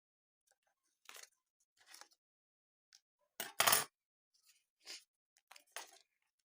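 Blind bag packaging and small plastic contents being handled, giving a series of short rustles and clinks about a second apart. The loudest is a longer crinkle a little past halfway.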